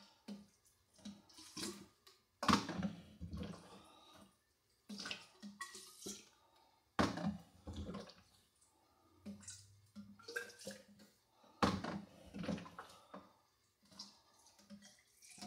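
Turkey baster drawing up fruit wine must and squirting it into a hydrometer test cylinder: a series of short, irregular splashes and gurgles of liquid with quiet gaps between.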